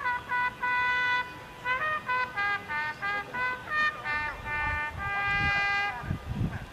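A bugle call played on a brass bugle: a sequence of short and held notes that ends in a long held note about six seconds in.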